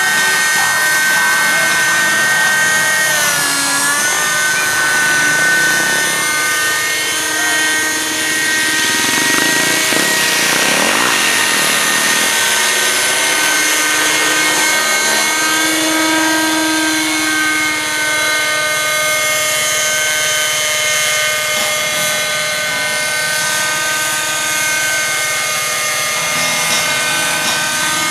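Radio-controlled model helicopter in flight: its engine and rotor make a steady, high-pitched whine. The pitch dips briefly about three seconds in, and the sound turns rougher and noisier for a few seconds around the middle.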